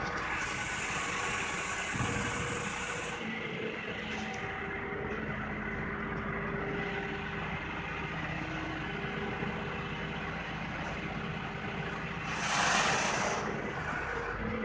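Steady hum of running industrial machinery, engine-like, with a few held tones. About twelve seconds in comes a brief, louder hiss.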